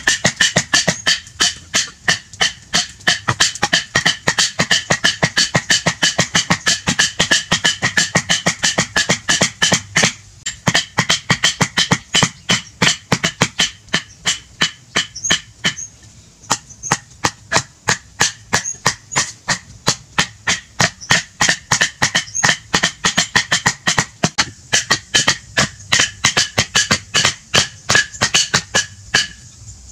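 Wooden stakes being driven into the ground with hand-held wooden clubs: rapid, uneven wood-on-wood knocks, several a second, from two people pounding at once.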